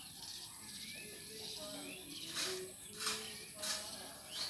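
Ducks calling as they forage: soft, short, low calls, then four short harsh calls in the second half, about two-thirds of a second apart.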